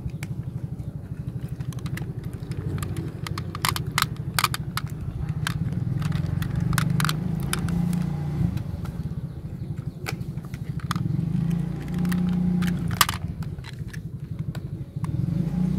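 Glass marbles clicking and rattling against each other in a plastic toy garbage truck's bin as the truck is handled, in scattered bursts. Under them runs a steady low motor rumble.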